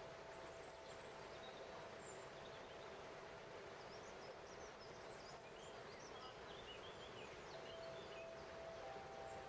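Water rushing steadily over a small stepped waterfall, with small birds chirping in the middle. Long held tones of a crystal harp sound faintly at the start, and a stronger one returns near the end.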